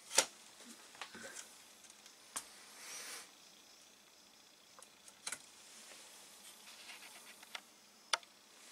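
Faint handling noise: scattered small clicks and a brief soft rustle, with one sharper click just after the start.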